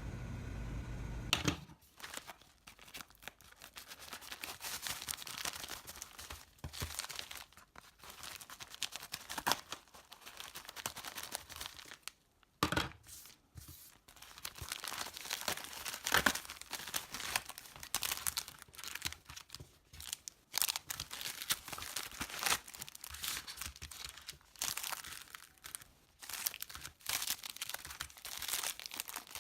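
Plastic packaging being crinkled and torn open by hand during an unboxing, as irregular crackles and rips that start about a second and a half in.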